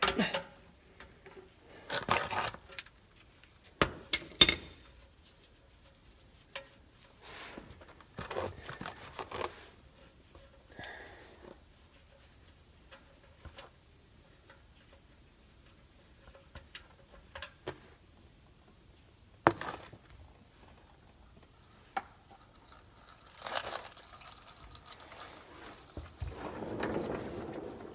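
Scattered clinks and knocks of a socket wrench and drain pan while the engine-oil drain plug of a 2016 Kawasaki Mule Pro FX utility vehicle is taken out. Near the end, a stream of draining oil splashes into the drain pan. A faint, regular high ticking runs through most of it, about two a second.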